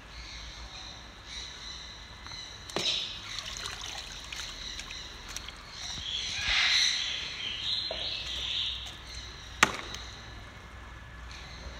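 Water splashing and sloshing in a plastic tub as a shoebill plunges its bill in to seize a dead rainbow trout. Two sharp knocks come about three seconds in and near the end, the second the loudest sound.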